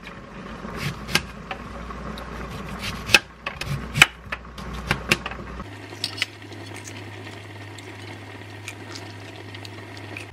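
Kitchen knife slicing a peeled peach off its pit over a stainless steel tray, the blade tapping sharply on the metal again and again, the taps thinning out after about six seconds.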